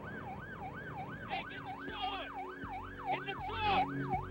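Vehicle siren in a fast yelp, its pitch sweeping up and down about three times a second, over a low engine hum.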